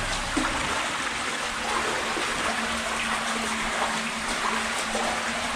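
Water running and trickling through an underground tunnel, a steady rushing hiss with small irregular splashes in it.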